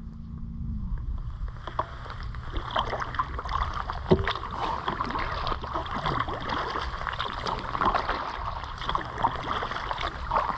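Kayak paddling on open water: irregular splashing and dripping from the paddle blades, over the low rumble of wind on the microphone. A sharp knock about four seconds in.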